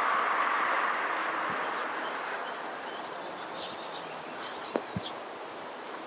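Outdoor spring ambience: a gust of wind noise that eases after the first second or so, with small birds calling in short, high, thin whistles, some sliding down in pitch. A few soft knocks come near five seconds in.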